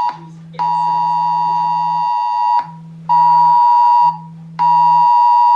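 Smartphone sounding the UK Emergency Alert tone: two close tones near 1 kHz sounding together, loud, in a cadence of one blast of about two seconds followed by two one-second blasts with half-second gaps. The phone's vibration motor buzzes in pulses underneath.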